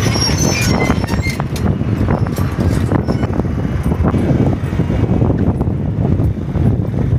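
A moving vehicle's steady low rumble with rattling, and some wind buffeting the microphone.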